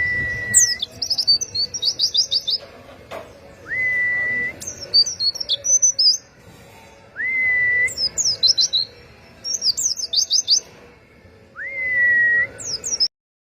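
Pleci (white-eye) birds singing: quick, high chirping trills in bursts, with a clear whistle that rises and then holds steady, repeated four times. The sound stops abruptly near the end.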